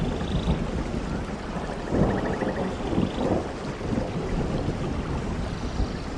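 Forest stream flowing, a steady rush of water with a low rumble and uneven surges.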